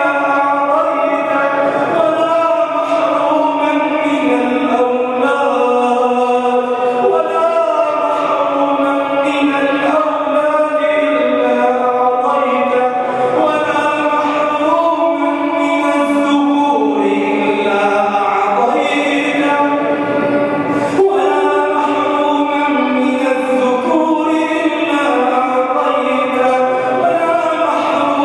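A man chanting a melodic Arabic supplication (du'a) into a microphone, in long, held, sliding phrases carried over a mosque's sound system.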